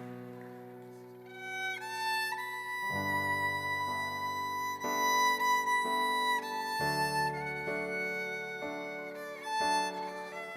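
Slow instrumental music: a violin plays a melody of long held notes over sustained chords that change every few seconds, starting softly and swelling after the first second.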